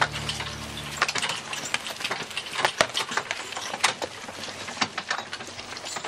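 Irregular clatter of sharp clicks and knocks from a horse-drawn carriage's hooves and wheels and running footsteps on leaf-strewn dirt. Background music fades out about a second in.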